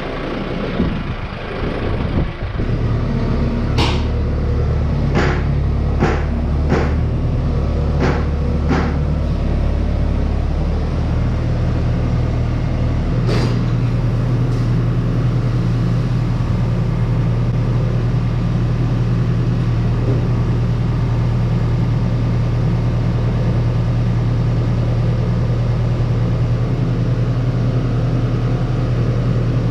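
Claas Dominator 85 combine harvester running with a loud, steady engine drone. About four seconds in come a handful of sharp clicks or knocks over five seconds, then one more; around eleven to thirteen seconds in, the deep engine note steps up to a higher, steady pitch.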